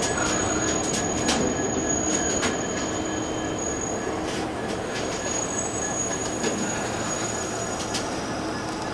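Steel-wheeled engineering-train wagons rolling past, a steady rumble with a thin high metallic squeal from the running gear and scattered clicks and clunks from the wheels over the rails.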